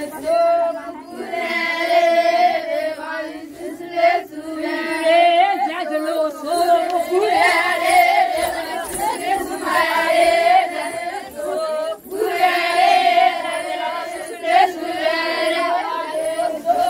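A group of voices singing a traditional wedding folk song together, unaccompanied, in repeated phrases of about two seconds with short breaks between them.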